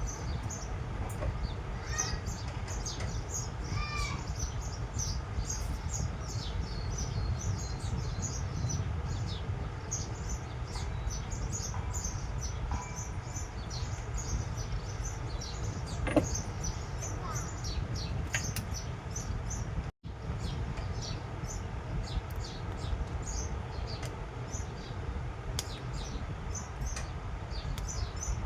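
Small birds chirping over and over, short high calls over a steady low rumble.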